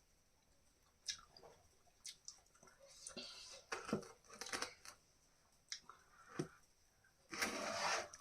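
Chewing and biting into grilled chicken sekuwa: scattered small crunches and tearing sounds, with a louder, hissy sound of just under a second near the end.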